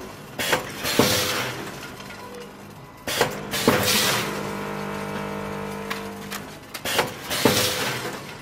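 Vertical form-fill-seal pouch packing machine running in cycles: three times, about every three and a half seconds, sharp clacks of the sealing jaws come with a hissing rush, over a steady machine hum.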